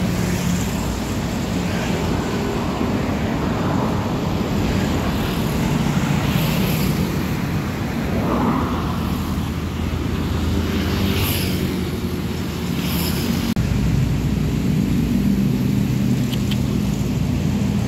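Intercity coach buses' diesel engines running as they drive past, a deep steady hum with tyre and traffic noise. Short hissing sounds come a few times, and the engine sound changes abruptly a little past two-thirds of the way through.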